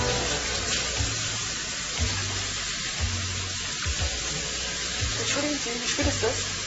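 Steady hiss of water running from a tap into a washbasin, with a soft low beat pulsing about once a second underneath.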